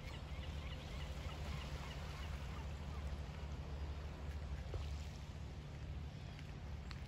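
Seaside outdoor ambience: a low steady rumble with faint bird calls chirping in the first second or so.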